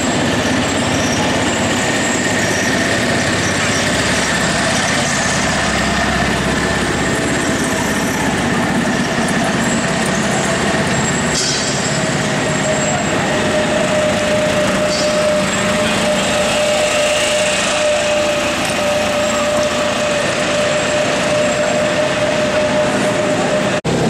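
Steady background rush of a large, busy exhibition hall, with a faint steady whine held at one pitch through much of it.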